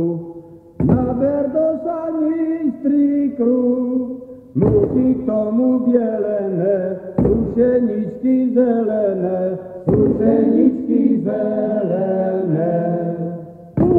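Men's voices singing a Slovak folk chant from an archival field recording, in phrases of a few seconds that each start abruptly.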